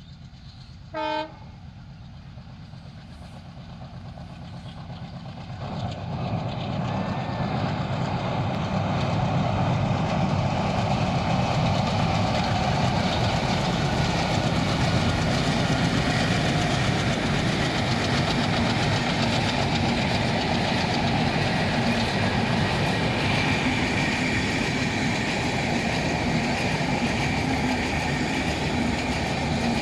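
A short horn blast about a second in, then a passenger train drawing near and passing close by: its rumble and wheel noise build over several seconds and then stay loud and steady.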